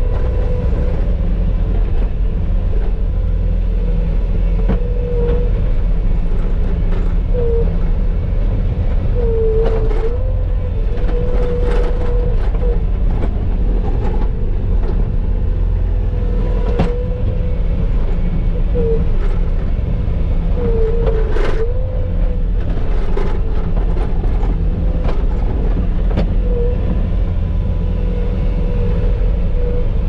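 Skid steer engine running steadily under load while plowing snow, with a steady whine that dips briefly in pitch now and then, and scattered knocks and clanks.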